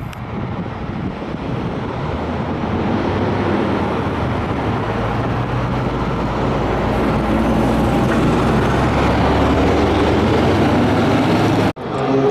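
Road traffic with a vehicle running close by: a dense rumble with a low steady hum that grows louder over the first few seconds and then holds. It cuts out abruptly for an instant near the end, then picks up again with a faint rising whine.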